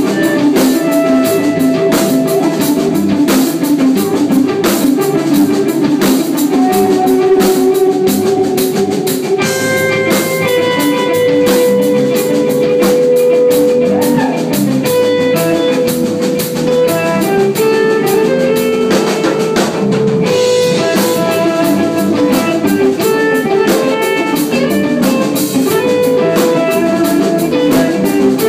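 A rock band playing live: electric guitars over a drum kit, with steady drum and cymbal hits and a guitar holding long notes from about ten seconds in.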